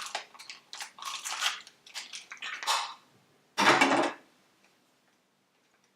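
Blind-box toy packaging being handled and opened: a run of short crinkling, rustling bursts, then one louder crunch about three and a half seconds in.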